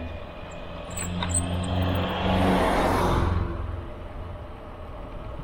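A motor vehicle passing close by on the road, its engine hum and tyre noise swelling to a peak about two to three seconds in, then fading.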